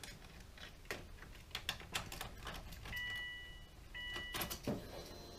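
Scattered light clicks and rattles of handling, with two electronic beep tones about three seconds in, the first just under a second long and the second shorter.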